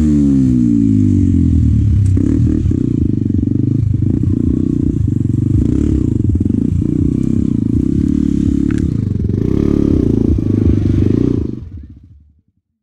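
Honda Bros 125 single-cylinder four-stroke engine running under the rider, its pitch rising and falling with the throttle, with a few knocks and clatter from the bike over rough ground. The sound fades out near the end.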